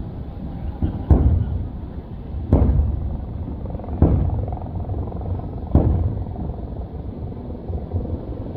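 Aerial fireworks shells bursting: four booms about a second and a half apart, each fading out, over a steady low rumble.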